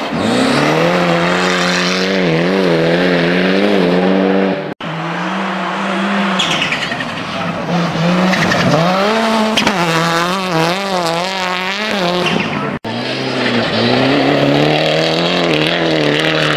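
Rally car engines running hard on a snow stage, the revs rising and falling quickly as the throttle is worked through slides. The sound breaks off twice and switches to another car's pass.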